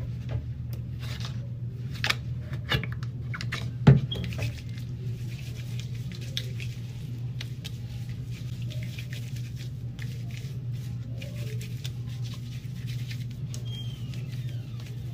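Hands rubbing and squishing lather into hair stiffened with Gorilla Glue, a soft wet crackling. Several clicks and a sharp thump about four seconds in, over a low steady hum.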